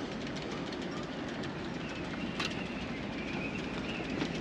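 Strong wind blowing across the microphone: a steady rush with scattered light clicks.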